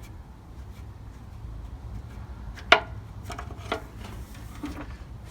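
Metal tools and parts clinking while an old brake light switch is taken out: one sharp click about two and a half seconds in, another about a second later, with lighter rattles between.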